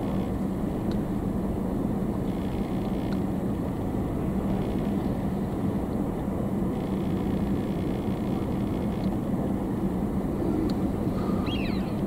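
Steady low rumble of vehicle engine noise with a constant hum. A faint short high call sounds near the end.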